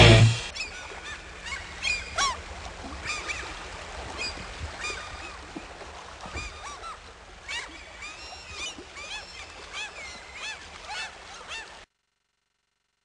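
A rock song cuts off at the start, followed by a flock of birds calling: many short, overlapping chirp-like calls that rise and fall in pitch. It stops abruptly into silence about twelve seconds in.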